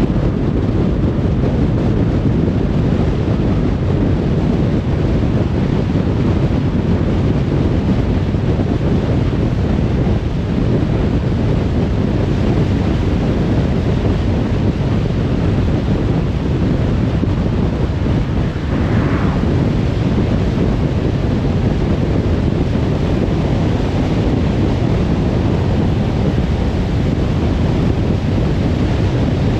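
Car travelling at motorway speed: a steady low rumble of tyre and wind noise.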